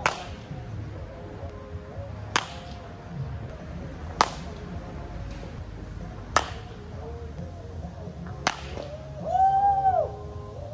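Baseball bat hitting pitched balls in a home run derby: five sharp cracks about two seconds apart, over background music. A brief, loud tone that rises and falls comes near the end.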